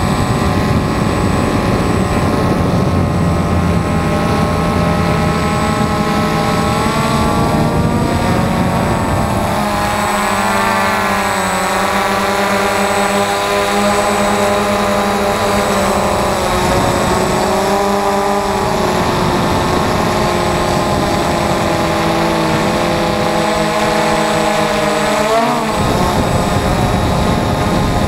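The DJI Phantom FC40 quadcopter's four brushless motors and propellers whine steadily, heard close up from the camera slung beneath the drone. The pitch of the stacked tones wavers and glides as the motors change speed, with a sharp swing up and back down about 25 seconds in.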